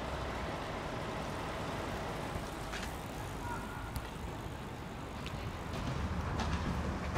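Steady motor-vehicle noise: a low rumble under an even hiss, with no speech. The rumble grows louder about six seconds in.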